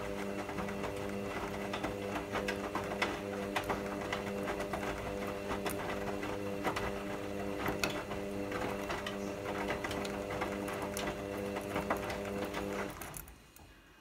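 Hoover front-loading washing machine in the first rinse of a cottons cycle: the drum motor hums steadily as the drum tumbles the wet laundry, with water and clothes splashing and clicking inside. The motor stops near the end and the drum falls quiet.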